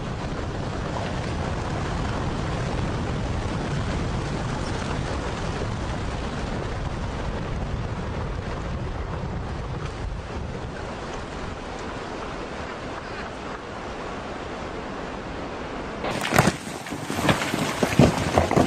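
Strong wind buffeting the microphone: a steady, low rushing noise. About sixteen seconds in it cuts off and several sharp knocks follow.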